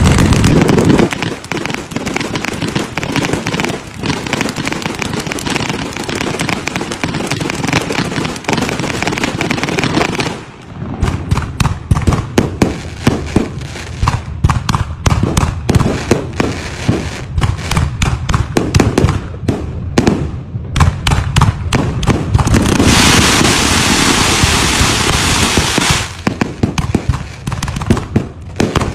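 Fireworks display: a continuous din of bangs and crackling from aerial shells and ground fountains. A long run of many sharp separate cracks comes in the middle, and a few seconds of dense hissing crackle come near the end.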